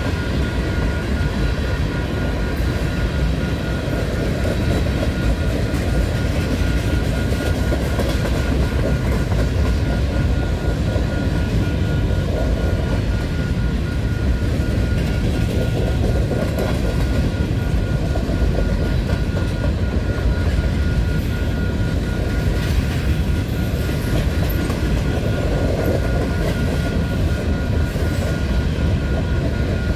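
Freight train's tank cars and covered hoppers rolling past, their steel wheels rumbling and clacking steadily on the rails. A faint steady high tone runs underneath.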